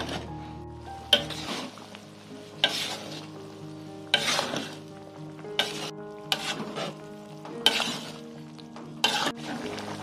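A ladle stirring a simmering stew in a wok, scraping against the pan about every one and a half seconds, over the low bubbling of the stew.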